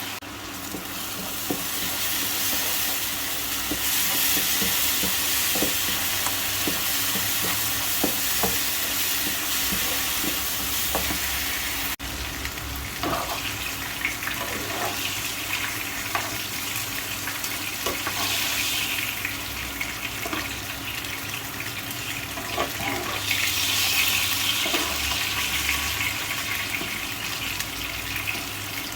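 Food sizzling in hot oil in a pan, a steady high hiss with scattered knocks of a utensil stirring.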